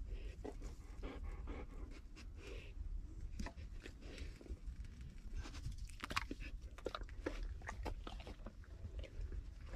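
A dog chewing and crunching on raw meat, with irregular crunches and bites over a low steady rumble.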